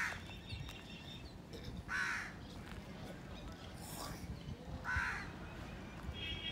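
A crow cawing three times, a call every two to three seconds, over a faint low background rumble.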